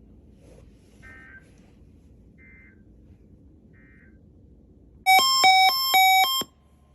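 Weather radio test signal: three faint short bursts of digital data tones, then a loud alert beep that switches rapidly back and forth between two pitches for about a second and a half near the end, cutting off suddenly.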